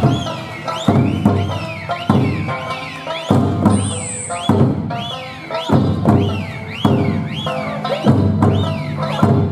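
Okinawan eisa music: sanshin and song with hand-drum strokes about once a second. Over it, repeated rising-and-falling finger whistles from the dancers, with one very high whistle about four seconds in.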